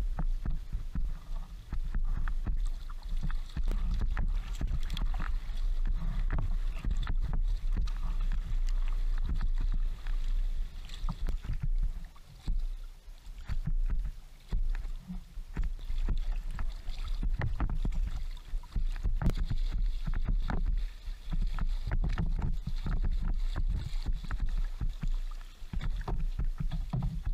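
Wind rumbling and buffeting on an action camera's microphone aboard a moving sea kayak, with irregular splashing of water against the boat.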